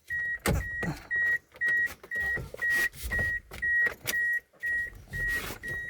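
Toyota Corolla Altis's dashboard warning chime beeping steadily about twice a second with the ignition switched on, with a few clicks and knocks among the beeps.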